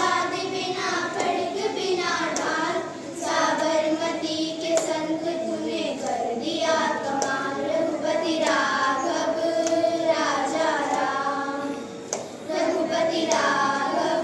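A group of children singing a song together in unison, line after line with brief breaks between phrases, with some light hand clapping along.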